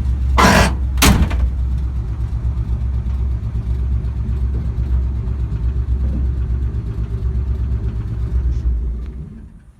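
An old car's engine idling with a steady low rumble, then shut off and dying away near the end. Two loud knocks about half a second and one second in.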